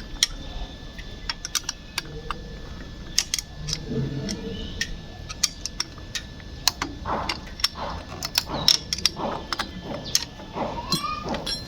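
Irregular metallic clinks and taps of a spanner working loose the nut on a motorcycle starter motor's mounting bolt.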